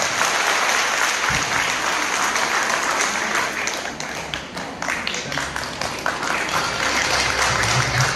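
Audience applauding, a steady spread of many hands clapping that dips slightly about four seconds in.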